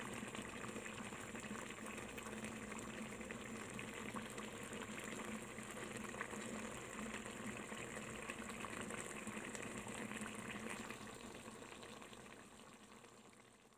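Shrimp in coconut-milk sauce bubbling at a simmer in a pan: a steady soft bubbling with many small pops, fading away over the last few seconds.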